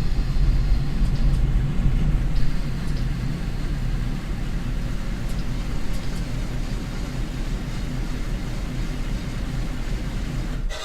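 Road force wheel balancer spinning a wheel and tire with its load roller pressed against the tread: a steady low rumble that cuts off suddenly near the end as the spin cycle finishes.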